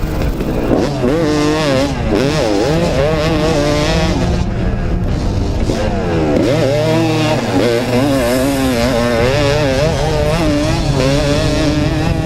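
Kawasaki KX250 two-stroke dirt bike engine being ridden hard, its pitch rising and falling again and again as the throttle is opened and shut.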